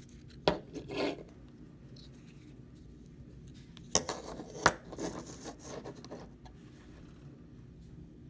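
Thin cut sheet-metal parts being handled: sharp clicks as the pieces knock together, twice about a second in and twice more near the middle, with rubbing and scraping between them, over a steady low hum.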